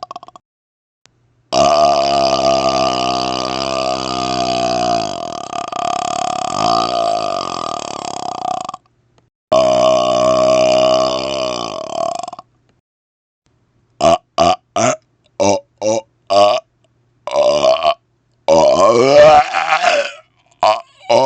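A man burping on command: one long, drawn-out burp of about seven seconds, then a shorter burp of about three seconds, then a rapid-fire string of short burps followed by a few longer ones near the end.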